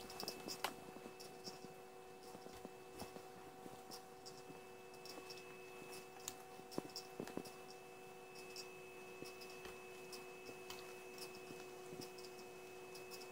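Quiet room tone: a faint steady hum with scattered soft clicks and ticks.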